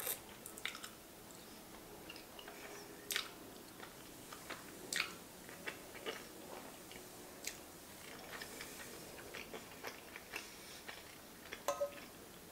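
A person biting into and chewing large spirals of fusilli pasta in sauce, with scattered short mouth clicks and smacks.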